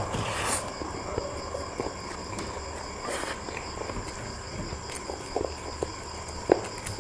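Steady high chirring of insects, typical of crickets, with scattered small clicks and taps over it and two brief hissy bursts, about half a second and three seconds in.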